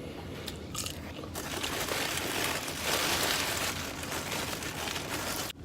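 Takeout food packaging crinkling and rustling: a dense rustle that starts about a second in and cuts off abruptly just before the end.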